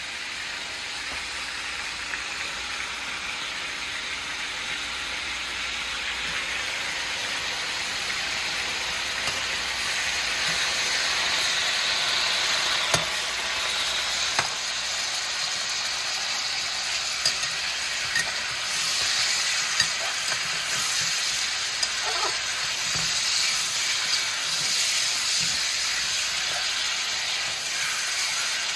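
Turkey neck pieces searing in hot oil in an aluminium pan, sizzling steadily and a little louder from about a third of the way in. A few short clicks and scrapes of a spatula against the pan come in the second half as the pieces are turned.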